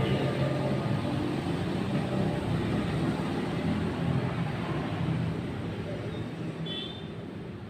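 A motor vehicle engine running, fading slowly toward the end.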